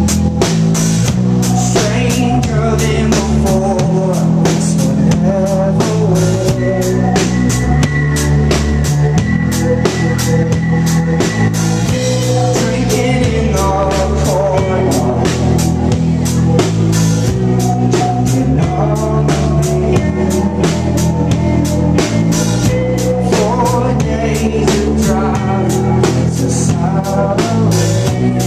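Live rock band playing an instrumental passage: a drum kit keeps a steady beat under bass and guitar chords that change every second or so.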